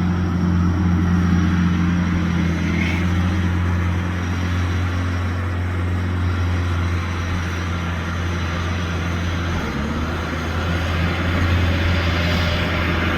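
Diesel engine of a Rippa NDI680 tracked skid steer running steadily with a constant low hum, the engine note shifting slightly about ten seconds in.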